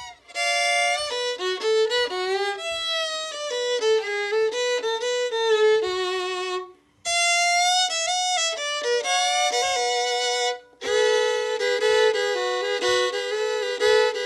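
Solo fiddle playing a bluegrass break at a slow tempo, a single melody line with many slides between notes, breaking off briefly twice. From about eleven seconds in it plays double stops, two strings bowed together.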